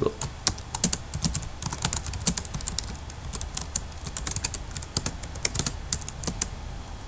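Typing on a computer keyboard: quick runs of key clicks, stopping about six and a half seconds in.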